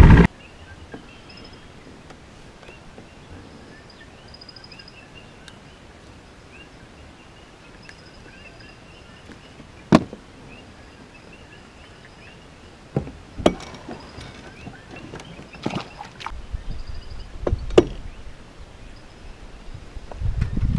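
Faint bird chirps over a quiet lakeside background, broken by sharp knocks against a small fishing boat's hull: one about halfway through and several more in the second half. A low rumble comes in near the end.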